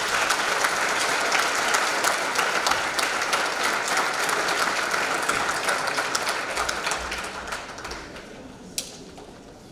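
Large audience applauding in an auditorium, full at first and dying away over the last few seconds. A single sharp knock comes near the end.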